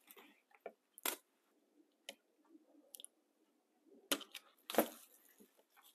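Side cutters and a utility knife cutting the clamp band and the old rubber boot off a CV axle joint: scattered sharp snips and clicks, with two louder crunching cuts near the end, the loudest about five seconds in.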